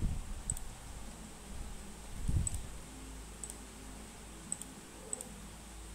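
Computer mouse buttons clicking: about half a dozen short, sharp clicks at uneven intervals. There are also two low muffled thumps, one at the start and a louder one about two seconds in.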